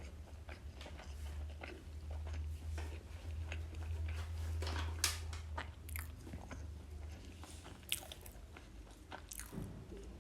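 Close-miked chewing and biting of food, with many small wet clicks and a few sharper mouth clicks, over a steady low hum.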